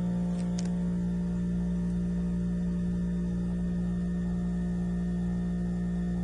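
Heat pump humming steadily, a strong low tone with many overtones, while its black insulated refrigerant pipe vibrates and runs very hot; it sounds stuck. A couple of faint ticks about half a second in.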